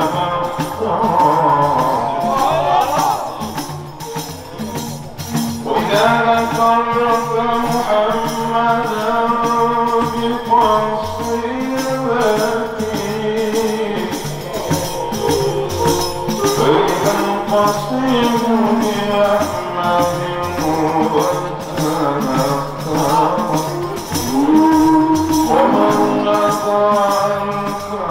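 Men chanting a Maulid devotional song in Arabic into microphones, a melodic sung praise of the Prophet, over a steady hand-percussion beat.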